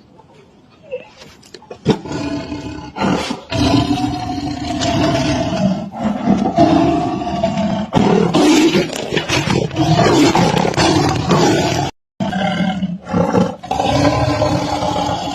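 Big cat roaring repeatedly in long, pitched calls, starting about two seconds in. The sound drops out completely for a moment about twelve seconds in.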